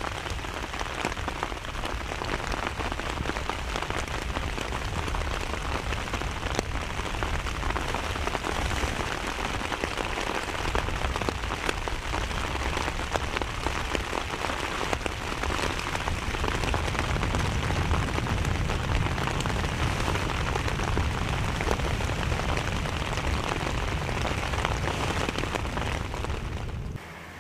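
Heavy rain falling steadily, a dense hiss of countless drop ticks, with a low rumble that grows stronger past the middle; the sound drops away abruptly right at the end.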